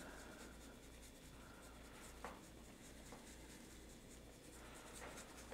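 Faint, soft hissing shakes of a dry barbecue rub from a plastic shaker bottle, the granules falling onto raw chicken drumsticks, with a couple of light ticks.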